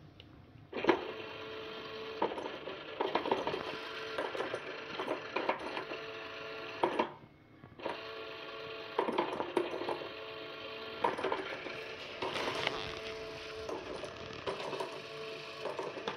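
Battery-powered motorised peekaboo cat toy (a plastic dome) whirring steadily, with rapid plastic clicks and rattles as a cat bats into its holes. The motor starts about a second in, stops briefly about seven seconds in, then runs again.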